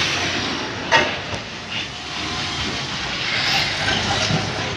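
Vehicle noise with a steady hiss, broken by a sharp, loud crack about a second in.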